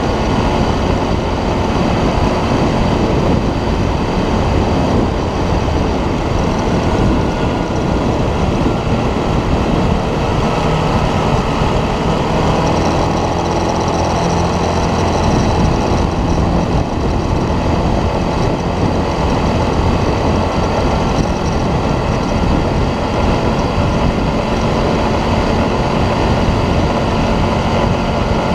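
ATV engine running steadily and loudly while the quad is ridden, with a dense low rumble.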